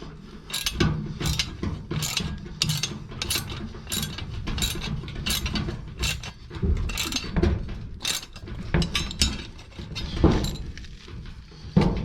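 Socket ratchet wrench being worked in steady strokes, clicking about three times every two seconds, as a Dynabolt masonry anchor is tightened down.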